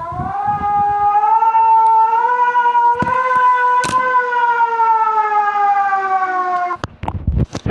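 A siren wailing in one long tone that climbs over the first couple of seconds, then slowly falls and cuts off suddenly near the end. A sharp click comes about four seconds in.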